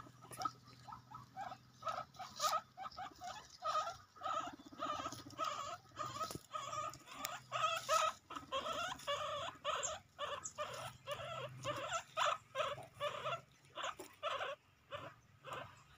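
Guinea pigs squeaking over and over in short, high calls, a few a second, while they feed on fresh grass.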